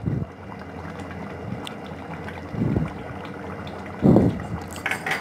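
Thick chicken curry being stirred in a pot with a wooden spatula: a few soft strokes, the loudest about four seconds in, over a steady rushing noise.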